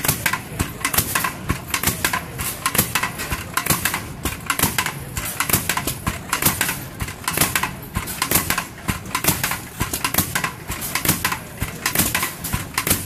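Gas-piston-powered tamper (an internal-combustion rammer) running as it is walked across gravel: a rapid, steady run of sharp knocks as its piston fires and the foot pounds the ground.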